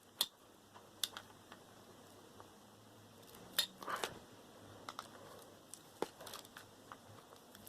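Scattered faint clicks and knocks of metal parts being worked loose while a transformer is taken apart for scrap, with a few sharper clicks about a second in, near the middle and about six seconds in.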